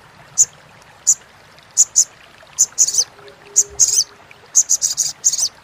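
Olive-backed sunbird (sogok ontong) giving its sharp, high chattering calls: short chips, single or in little clusters, spaced out at first, then a quicker run of them near the end.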